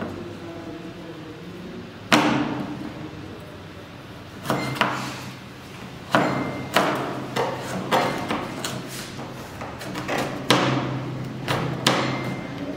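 Kitchen knife chopping carrot on a plastic cutting board: sharp, uneven knife strikes, one at about two seconds in, then a run of them every half second to a second.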